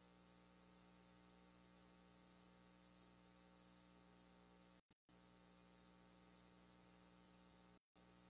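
Near silence: a faint steady electrical hum with light hiss, dropping out to dead silence twice for a split second, about five and eight seconds in.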